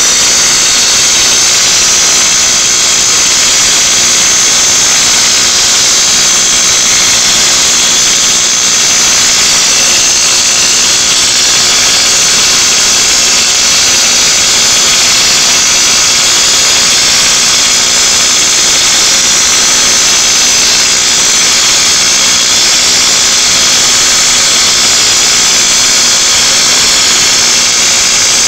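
TIG welding arc burning continuously, a loud, steady hiss and buzz with a constant underlying hum.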